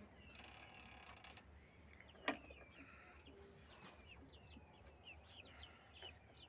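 Young Brahma chickens peeping faintly in a run of short, falling peeps. There is a brief rustle near the start and a single sharp click a little after two seconds in.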